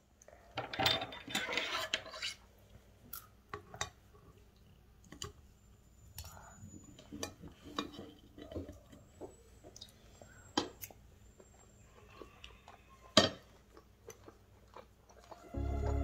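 Cutlery clinking and scraping against a plate while eating, in scattered taps with a busier stretch about a second in and a sharp clink about thirteen seconds in.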